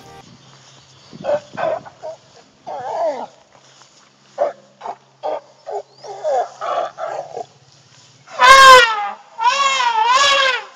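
Elephants calling: a run of short squeaks and chirps, then two loud trumpets near the end, the second with a wavering pitch.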